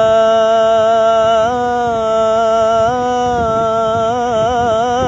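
A young man's solo voice singing an Islamic devotional chant (inshad) in praise of the Prophet. He draws out long held notes on a single melisma, and the pitch wavers through ornamental turns in the second half.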